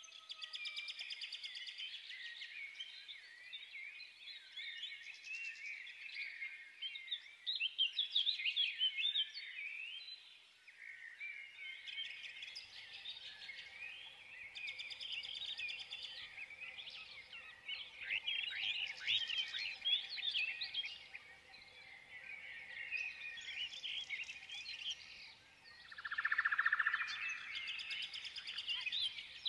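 Several songbirds chirping and twittering continuously in quick, high, overlapping phrases, with a louder buzzy call near the end.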